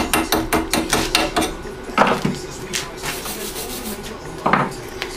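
A hand tool scraping and tapping on a fresh stick weld in mild steel, cleaning off the slag. Quick strokes, about seven a second, for the first second and a half, then two louder single knocks.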